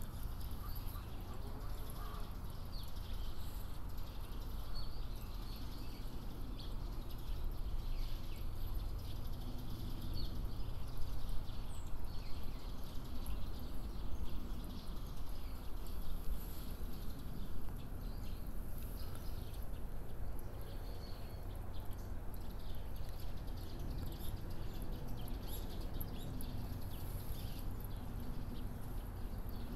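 Outdoor ambience: a steady low rumble with scattered faint high chirps of small birds.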